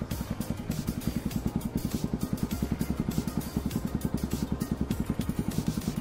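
Xplorer Z200II motorcycle's SOHC engine idling steadily, with an even beat of about a dozen exhaust pulses a second.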